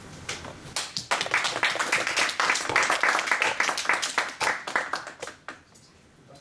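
A small group clapping. The claps build up about a second in, run on steadily, then thin out and die away near the end.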